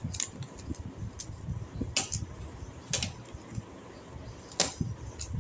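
Plastic speed cubes being turned quickly by hand: a run of irregular clicks from the layers twisting, with a few sharper clacks, the loudest about four and a half seconds in.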